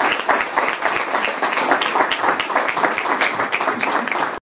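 A small group of people applauding with many overlapping hand claps, cutting off suddenly near the end.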